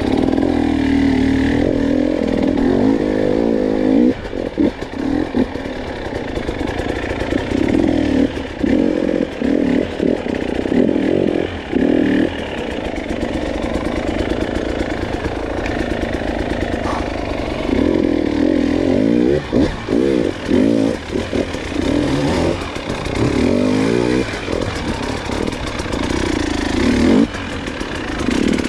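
Motorcycle engine revving up and down as the bike is ridden through tight switchback turns, with frequent brief drops where the throttle is rolled off.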